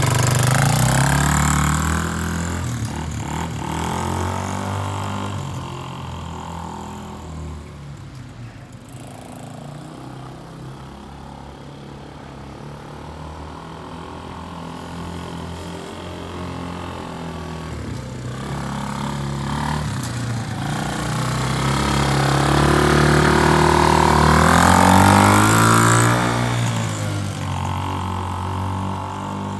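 Small 125 cc four-stroke single-cylinder ATV engine pulling away under a 110 kg adult rider, its pitch rising and falling with the throttle. It fades as the quad drives off, then grows loud again about twenty seconds in as it comes back.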